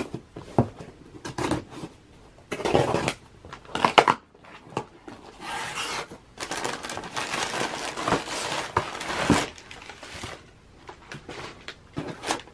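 Unboxing a small cardboard shipping box: a knife cutting the packing tape, then the cardboard flaps being pulled open with scrapes and knocks. Midway there are several seconds of packing paper rustling and crinkling as it is pushed aside, followed by a few light taps.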